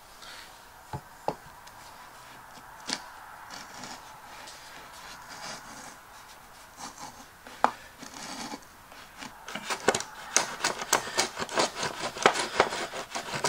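Hand router plane shaving wood from the bottom of a saw-cut groove, trimming the ridges left by the saw blade down to the set depth. A few light knocks come first, then from about ten seconds in come rapid, repeated scraping cutting strokes.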